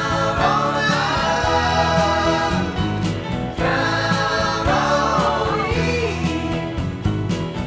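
Background music with singing voices over a steady accompaniment.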